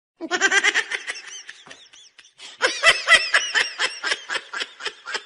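A person laughing in rapid, high-pitched bursts: a short run of giggles, a brief pause, then a longer fit of laughter.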